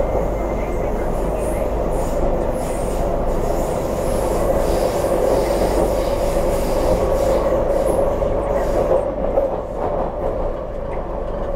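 Onboard running noise in the motor car of an MTR CNR Changchun 'C' train with IGBT-VVVF traction, travelling steadily between stations: a constant hum over wheel-and-rail noise.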